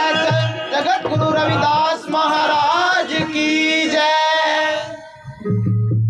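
A man singing a devotional shabad with musical accompaniment. The voice stops near the end and a low steady tone carries on.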